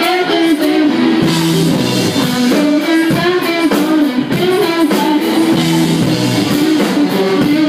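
Live rock band playing loudly: a repeating electric guitar riff over bass guitar and a drum kit.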